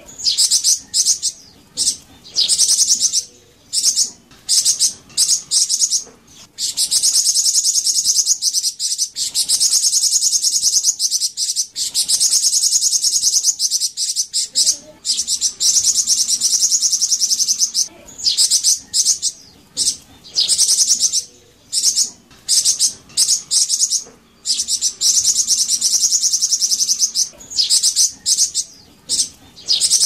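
Flamboyan bird (golden-headed cisticola) singing a high-pitched, very fast trilling chatter in long runs of a second to several seconds, broken by short pauses.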